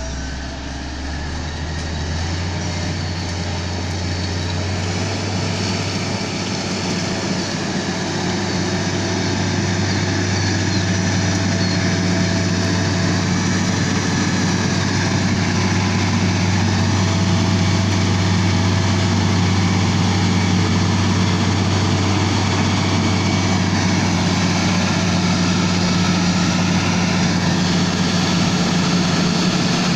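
Komatsu GD555 motor grader's diesel engine running steadily with a deep, even drone. It grows louder over the first several seconds, then holds steady.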